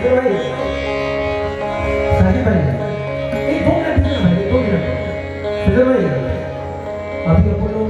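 Qawwali music: long held harmonium notes, with a singer's drawn-out, gliding vocal line over them in the middle of the stretch.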